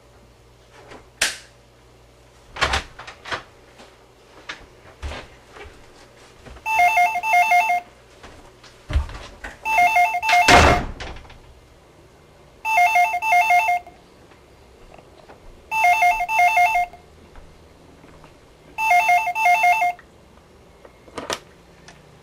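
Corded landline telephone's electronic ringer trilling five times, each ring a double burst, about three seconds apart. Scattered knocks and thumps come before and between the rings, the loudest together with the second ring, and there is a sharp click near the end.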